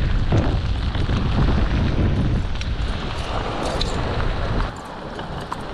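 Strong wind buffeting the microphone: a dense, loud low rumble that eases near the end.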